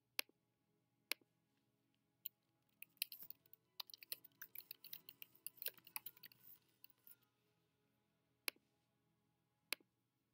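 Faint computer clicks and keyboard typing: a few single mouse clicks about a second apart, then about four seconds of quick typing, then two more single clicks near the end.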